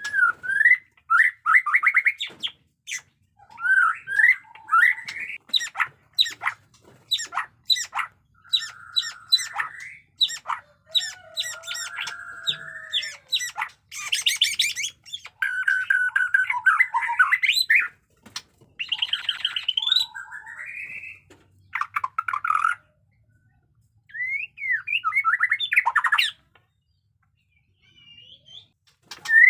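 White-rumped shama (murai batu) singing a loud, varied song of whistled phrases that slide up and down, mixed with rapid sharp clicking notes and harsh rasping bursts. This is the aggressive 'fighter' style with harsh 'batuk' (cough) notes. The song pauses briefly twice near the end.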